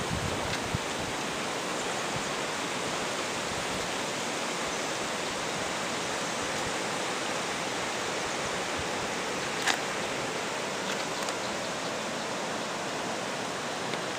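A steady, even hiss of outdoor noise, with one faint click about ten seconds in.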